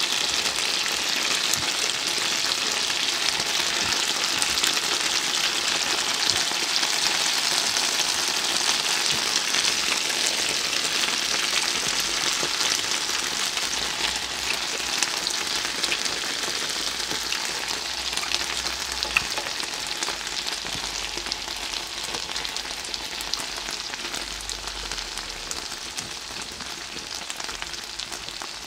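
Spicy stir-fried pork (jeyuk-bokkeum) sizzling in its oil on a black grill plate: a steady sizzle flecked with small pops and crackles, slowly fading toward the end.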